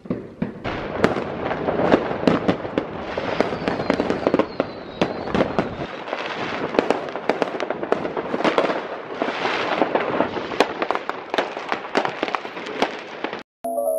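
Many fireworks going off at once: a dense, unbroken stream of bangs, cracks and pops, cutting off abruptly near the end.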